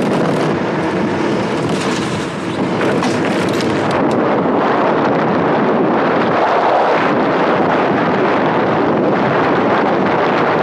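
Wind rushing hard over the microphone and tyres rumbling on rough asphalt as a gravity race car with no engine rolls fast downhill. The mic is mounted on the car. The noise is loud and steady, with a brief dip about two seconds in.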